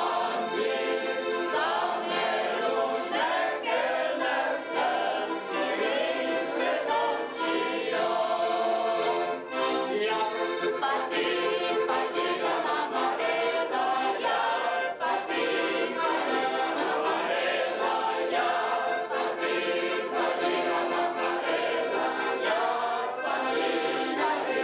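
A group of people singing together to a button accordion.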